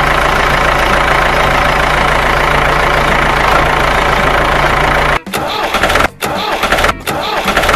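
Mercedes-Benz car engine running steadily while a drive wheel spins in a muddy puddle, the wheel stuck in the mud. About five seconds in the sound cuts off abruptly and gives way to short, chopped bursts of other sound.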